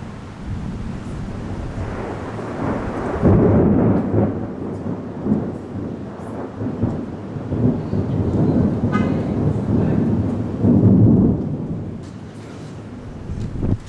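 Long rolling thunder: a deep rumble that builds over the first few seconds, swells and ebbs in several waves, and fades out about twelve seconds in.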